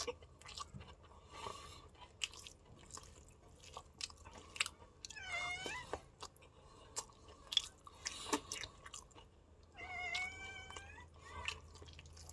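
Close-up mouth sounds of chewing noodles and rice: wet smacking with small clicks and crunches. Twice a short, high, wavering call like a cat's meow, about five seconds in and again about ten seconds in.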